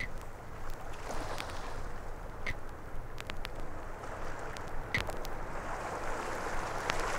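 Opening of an ambient electronic record played from vinyl: surf-like noise that swells and recedes, with a short high blip about every two and a half seconds. Scattered clicks and crackle from the record surface run through it.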